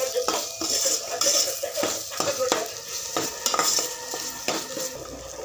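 A slotted metal spoon scraping and knocking against a metal pot as chopped onions and spices are stirred, with repeated irregular strokes over a steady sizzle of frying oil.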